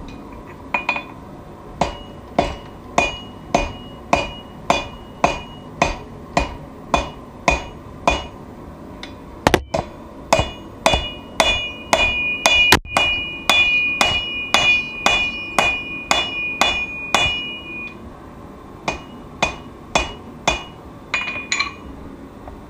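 Hammer blows forging a steel knife blade on an anvil, a steady rhythm of about two strikes a second, each with a ringing tone. The blows pause briefly near the end, then a few more follow.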